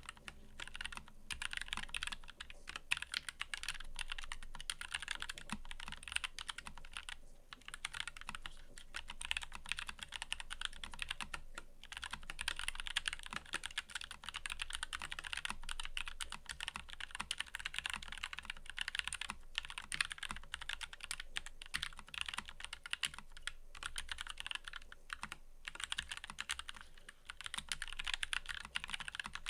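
Fast, continuous typing on a mechanical keyboard, a dense stream of key clicks and key returns, broken by a few brief pauses.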